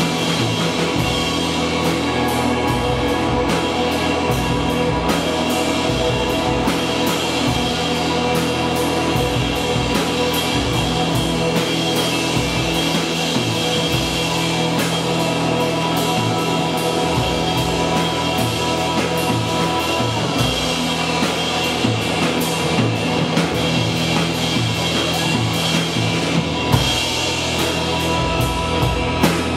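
Live rock band playing an instrumental passage: drum kit with snare and bass drum driving under amplified electric guitar.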